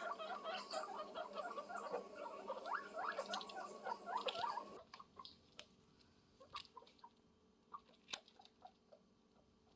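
Guinea pig squeaking in a rapid run of short, pitched squeaks, then, about five seconds in, an abrupt drop to faint scattered clicks and squeaks.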